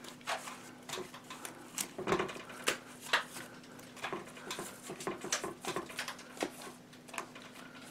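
Paintbrush dabbing and swishing through thick water-based trap-dipping solution in a plastic tub, making irregular wet dabs and clicks as the bristles and handle knock against the submerged traps. A faint steady hum runs underneath.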